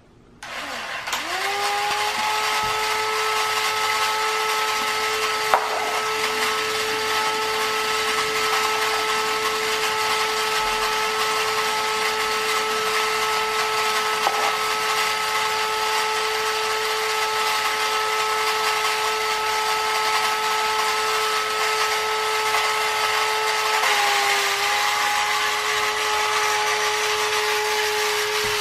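Yonezawa battery-operated tin space robot car toy switched on: its small electric motor spins up with a rising whine about a second in, then runs with a steady whine over a whirring mechanical rattle. A sharp click comes about five and a half seconds in, and the whine shifts slightly lower near the end.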